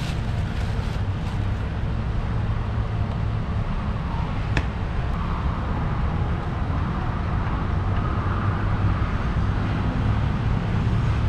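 Steady low rumble of vehicle engines and road traffic, with a single sharp click about four and a half seconds in.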